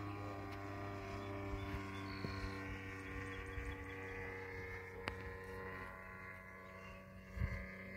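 Desert Aircraft DA-70 twin-cylinder two-stroke gas engine with a canister muffler, flying a 120-inch Turbo Bushmaster RC plane, droning steadily overhead. A brief low thump sounds near the end.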